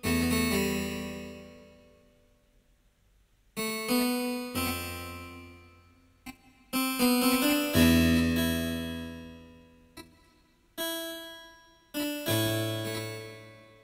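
Electric keyboard with a piano sound playing a slow, free-timed run of about seven chords, each struck and left to ring and fade, with a short near-silent pause about two seconds in. It is the keyboard part of an Irish slow air.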